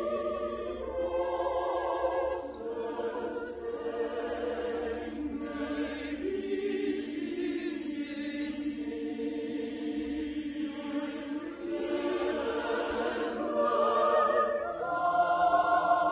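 Operatic chorus of voices singing held chords over an orchestra, with a few sharp sibilant consonants.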